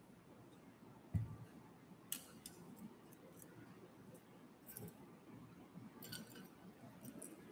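Faint, scattered clicks and light knocks of small objects and the hanging pans of a toy wooden balance scale being handled, with one low thump about a second in.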